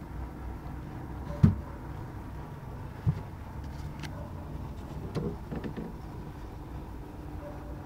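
Hand-held handling knocks and bumps over a steady low background hum: one sharp knock about a second and a half in, a smaller one about three seconds in, and a short cluster of bumps around five seconds.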